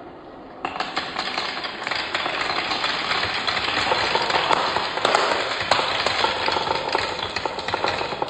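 Many marbles rolling and clattering down a wooden marble run: a dense, continuous rattle of small clicks that starts suddenly about half a second in and grows slightly louder.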